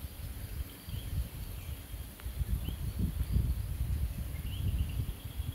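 Outdoor natural ambience: an irregular, gusty low rumble, like wind buffeting the microphone, over a steady high insect drone, with a few faint short bird chirps.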